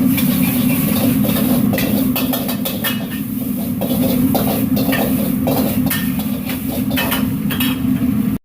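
Metal utensils clattering and scraping in a wok during stir-frying, over a steady low roar. The sound cuts off abruptly near the end.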